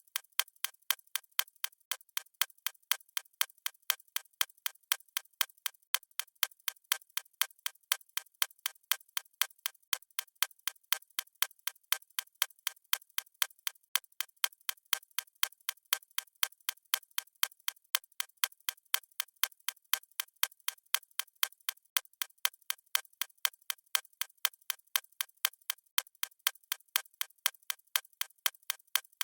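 Clock ticking sound effect: sharp, even ticks at about two a second, with no low end.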